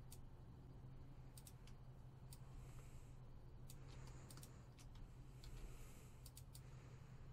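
Near silence with faint, scattered clicks from a computer mouse and keyboard, some in quick pairs and triples, over a steady low electrical hum.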